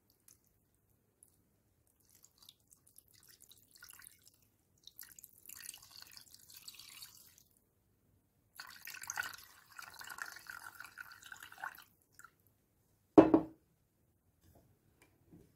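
Water poured from a small glass into a stainless steel pot of stuffed peppers, splashing and trickling in two pours. Shortly after the pouring stops, the glass is set down on the table with one loud knock.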